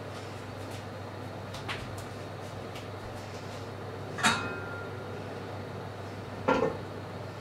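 Enamelled cast-iron pot lid clanking against a stainless steel steamer pot as it is lifted off, one sharp metallic clank with a brief ring a little past halfway, then a double knock about two seconds later as the lid is handled or set down, over a steady low hum.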